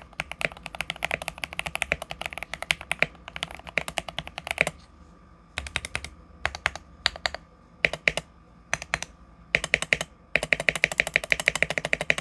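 Typing on an Akko ACR67 mechanical keyboard with lubed and filmed Gateron Milky Yellow linear switches and tape-and-foam mods. A fast run of keystrokes stops about five seconds in. Short groups of strokes follow, then another fast run near the end.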